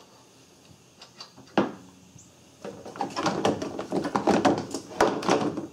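Metal hand tools handled on the engine: a single click about one and a half seconds in, then about three seconds of rapid, rattling clicks as the wrench is worked over onto the exhaust camshaft sprocket bolt.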